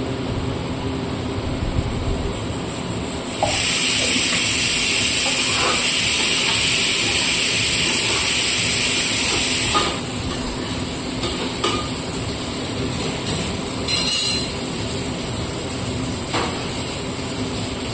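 Food frying in a pan, with a loud stretch of sizzling lasting about six seconds that starts a few seconds in and stops abruptly, followed by a few clinks of a utensil against the pan.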